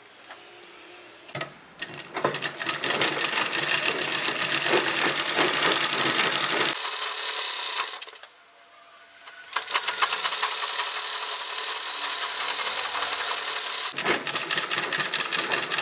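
Sewing machine stitching fabric in two runs: it starts about two seconds in, stops for a moment near the middle, then runs again, going slower with separate stitch strokes near the end.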